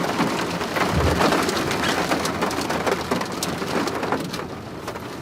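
Steady rain falling, with many individual drops ticking on a surface close by. There is a brief low thump about a second in.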